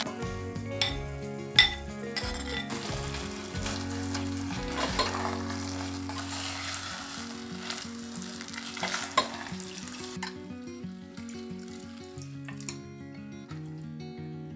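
Food sizzling as it fries in hot oil, with a few sharp utensil clicks. The sizzle dies down about ten seconds in.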